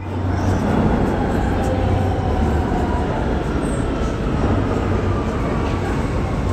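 New York City subway train approaching through the tunnel into an underground station: a steady rumble of wheels on rails, with a low hum under it, echoing in the station.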